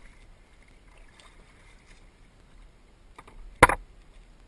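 Kayak paddling on calm water, quiet paddle strokes and water, with one sharp, loud knock about three and a half seconds in, the loudest sound heard.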